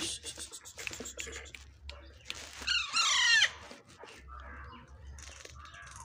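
Alexandrine parakeet chicks giving harsh food-begging calls, a quick loud series of squawks a little before halfway, with softer calls after it. Wing flutters and scuffling on the tiles around the calls.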